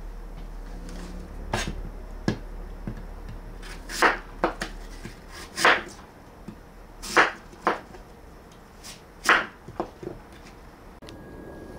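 Knife striking a cutting board while dicing food, about nine separate cuts at an uneven pace, a second or two apart.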